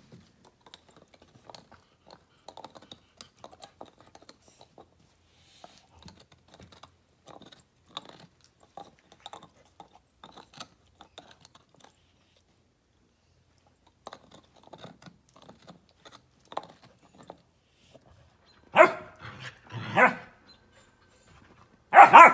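German Shepherd puppy and adult German Shepherd play-fighting, with faint clicks and scuffs of mouthing and chewing, then a few loud barks near the end.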